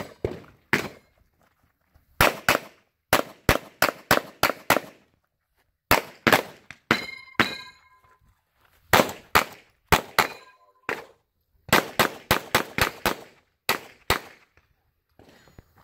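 Rapid gunfire: about thirty shots fired in quick strings and pairs, with brief pauses between target arrays, as a competitor shoots a 3-gun stage. Steel targets ring after a few of the hits, about seven and ten seconds in.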